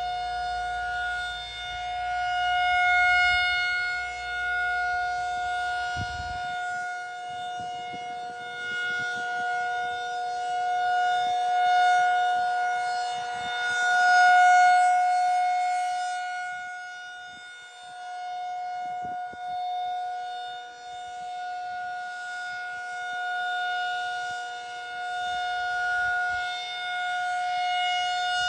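Federal Signal 2001 rotating outdoor warning siren sounding a steady alert tone at a held pitch for a tornado siren test. It is loud, swelling and fading as the rotating horn turns toward and away.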